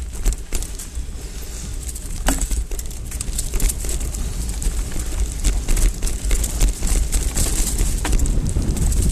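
Hardtail mountain bike rattling down a rough dirt singletrack, with tyres on dirt and frequent sharp clicks and knocks from the bike. Wind rumbles steadily on the microphone underneath.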